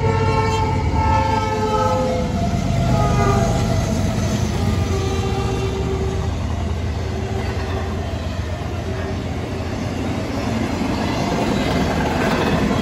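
Norfolk Southern freight locomotive's air horn sounding at a grade crossing for the first few seconds, its pitch dropping as the engines pass. Then the rumble and clickety-clack of a double-stack intermodal train's container cars rolling by.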